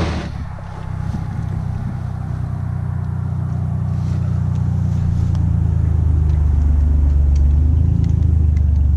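An engine running with a steady low hum, growing gradually louder over the stretch.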